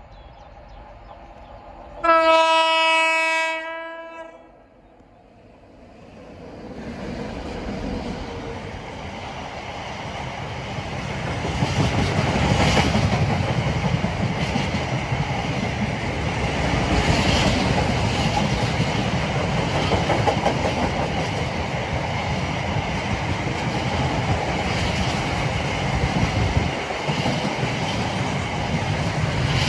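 A freight train's locomotive sounds one long horn note about two seconds in as it approaches. The train then passes close by with a steady rumble and clatter from its long rake of empty BBA steel-carrying wagons.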